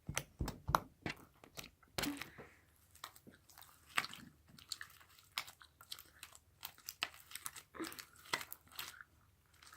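Slime being squished and kneaded by hand, giving irregular wet clicks, pops and crackles that stop near the end.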